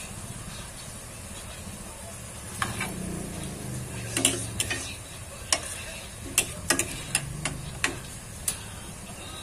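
Chicken feet sizzling in adobo sauce in a frying pan. From about two and a half seconds in, a metal ladle stirs them, knocking and scraping against the pan in a run of sharp clicks.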